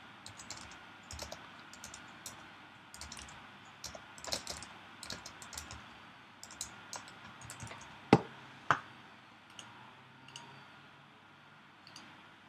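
Computer keyboard typing: a run of light key clicks, then two louder single clicks about eight seconds in, with only a few scattered clicks after.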